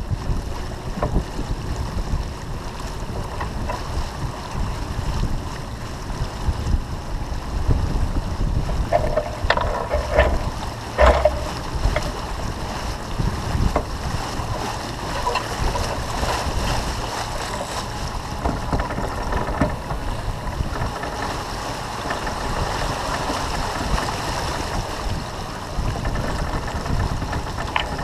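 Wind buffeting the microphone over the steady rush of water along the hull of a sailboat heeled over under sail, a gusty low rumble with hiss on top. A couple of short, indistinct sounds come about a third of the way in.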